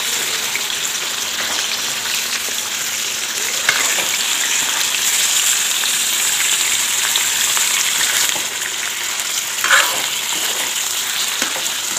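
Raw chicken pieces sizzling steadily in hot oil in a steel kadai, at the bhuna stage of frying them well. A steel ladle stirs them, and two short knocks of it against the pan stand out, about four and ten seconds in.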